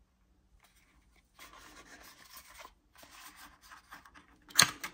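Small cardboard box being slid open by hand: faint rubbing and rustling of the paperboard, then a single sharp click near the end.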